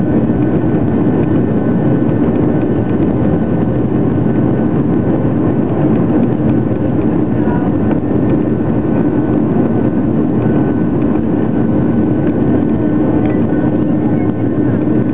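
Jet airliner's engines at takeoff-climb power, heard from inside the passenger cabin beside the engine: a loud, steady roar with a few held tones running through it.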